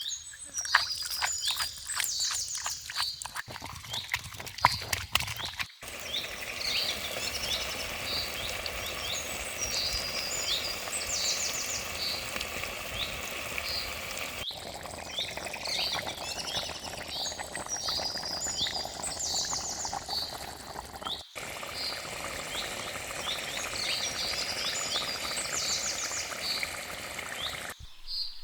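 Birds chirping and trilling over a steady hiss, with a quick run of sharp clicks and knocks in the first several seconds. The chirping breaks off abruptly a few times and resumes.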